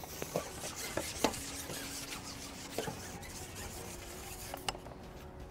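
Carbon fishing pole being shipped out hand over hand: a soft rubbing and sliding, with a few light knocks.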